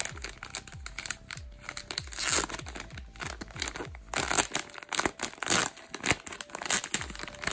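Plastic squishy packaging bag being handled and torn open, crinkling and crackling unevenly, with a few louder bursts of crinkling.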